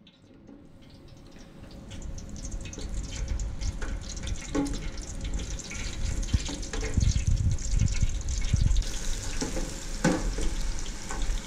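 Battered carp pieces deep-frying in oil at 375°F in an electric deep fryer: a dense crackling sizzle that swells over the first two seconds and then holds steady, with a few sharp clicks.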